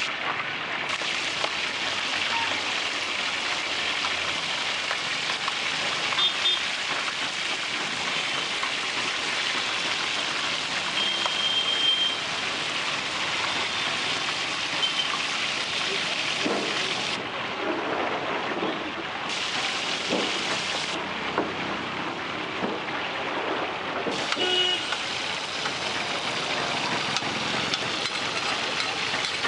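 Pomfret fish deep-frying in a wide, shallow iron pan of oil: a steady sizzle.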